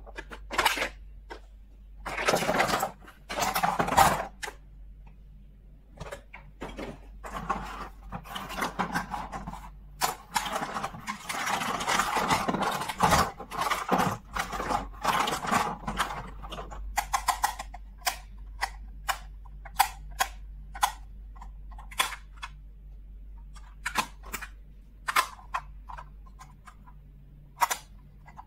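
Small plastic toys and their packaging being handled during an unboxing. There are rustling stretches in the first half, then a string of separate sharp clicks and taps as small plastic pieces are picked up and set down.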